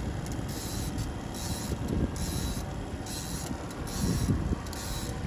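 A boat's outboard motor running steadily at trolling speed, heard as a continuous low rumble.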